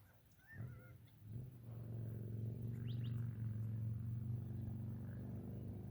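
A few short bird chirps, with a steady low hum that comes in about a second in and keeps on beneath them.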